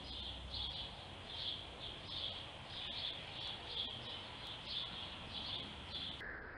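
A bird chirping faintly in the background, one short high note repeated about twice a second.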